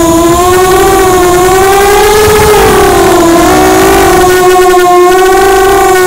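ImmersionRC Vortex 285 FPV racing quadcopter's brushless motors and propellers whining, the pitch rising and falling with the throttle through acrobatic flight, with a dip a little past the middle. Heard from the camera on board, close and loud over a rushing noise.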